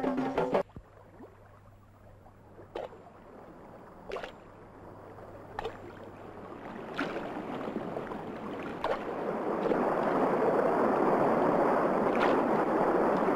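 River water rushing, swelling to a loud steady roar as a poled bamboo raft runs into rapids, with a sharp knock about every one and a half seconds. Music from the previous scene cuts off just after the start.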